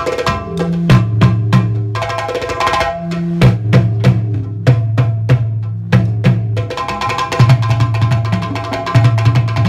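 Drum-led percussion music: sharp drum strikes in a quick, steady rhythm over low sustained bass notes.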